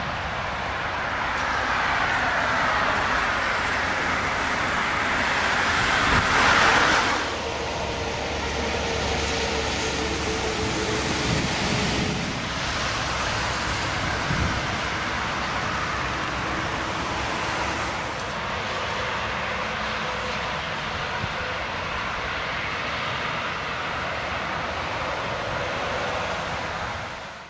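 Motorway traffic noise, with a vehicle passing close by about six seconds in: its whine falls in pitch and it is the loudest moment.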